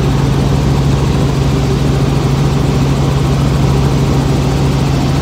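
Steady drone of a helicopter's engine and rotor in flight, heard from inside the cabin: a constant deep hum over a loud even rush.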